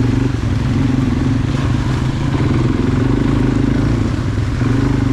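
ATV engine running steadily as the quad is ridden along a dirt trail, holding a fairly even pitch.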